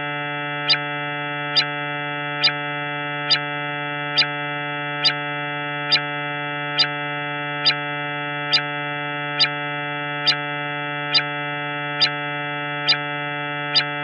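A steady synthesized drone, a low buzzy tone rich in overtones that does not change in pitch, with a sharp tick a little faster than once a second. It is presented as the 'sound' of Jupiter's moon Himalia, a space sonification.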